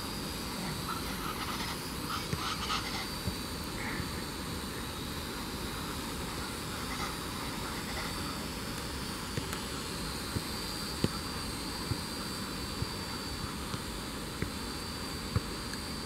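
Small quadcopter drone flying high overhead, a faint steady buzz with a thin high whine. A few faint chirps come in the first few seconds, and light clicks in the second half.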